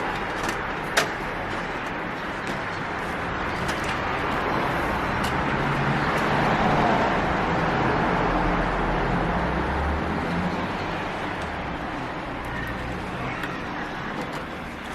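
Steady rushing, rumbling background noise that swells through the middle and fades again, like passing traffic, with one sharp click about a second in.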